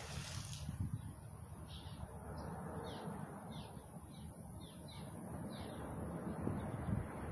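A bird calling in a string of short, high, falling chirps, about eight of them over a few seconds, over a low steady rumble.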